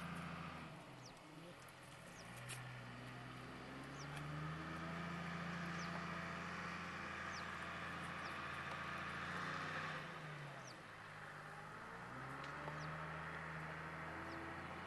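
A steady engine hum whose pitch drops and climbs back twice, once about a second in and again about ten seconds in, with short high bird chirps scattered over it.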